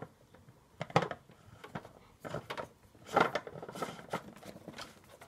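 Plastic filter housing of an Auro Cebilon Compact water purifier being handled and screwed back onto its head by hand: scattered plastic clicks and knocks, with a stretch of rubbing and scraping in the middle.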